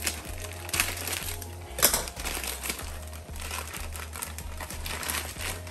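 Plastic instant-noodle packet crinkling as hands handle it, with a sharper crackle a little under two seconds in, over background music.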